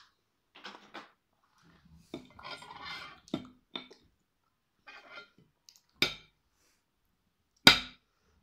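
Metal forks clinking and scraping against ceramic plates as pieces of lemon are speared, with a few sharp clinks, the loudest near the end.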